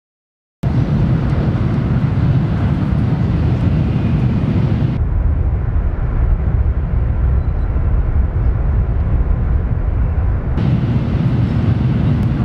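Loud, steady rail rumble and rushing air heard from inside a train carriage, while a 500 Series Shinkansen passes close alongside. It starts abruptly about half a second in. The hiss dulls suddenly about five seconds in and returns near the end.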